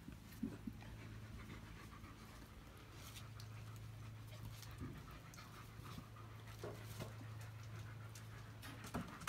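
Dog panting faintly, over a steady low hum, with scattered light taps.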